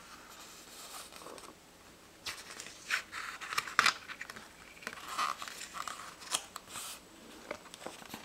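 Book pages being turned and smoothed flat by hand: crisp paper rustling and crackling, faint at first, then a cluster of sharp rustles in the middle as a page is flipped over.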